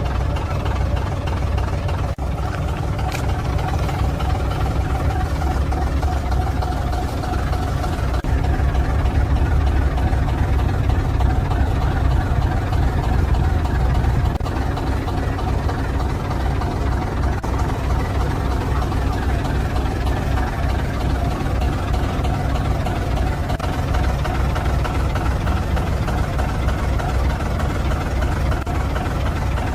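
Heavy truck's diesel engine running steadily at low revs, rising somewhat in level for a few seconds partway through.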